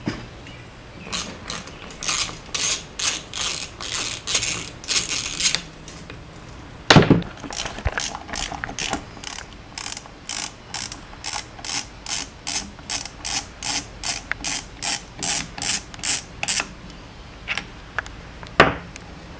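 Socket ratchet wrench clicking in regular strokes, about three a second, as bolts are backed out of a cast transaxle case. A loud knock comes about seven seconds in and another near the end.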